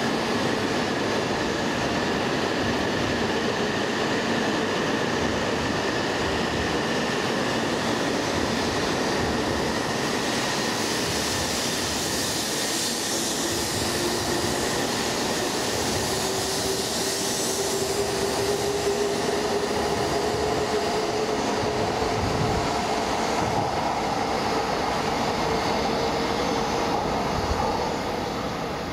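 E2 series Shinkansen train pulling out of the station, its cars rolling past at low speed with a steady rumble and hiss. Over the later part a whine climbs slowly in pitch as the train gathers speed. The sound drops in level near the end.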